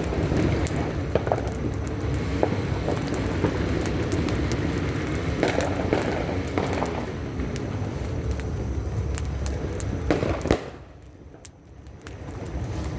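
Many scattered sharp pops and crackles, typical of New Year's firecrackers, over a steady low rumble of background noise. The sound drops away suddenly for about a second near the end, then comes back.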